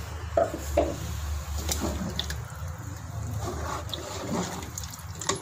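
Watery curry sloshing in a metal pot as a spoon stirs it, with a few sharp clinks of the spoon against the pot, over a low steady hum. Water has just been added to the fried masala to make the gravy.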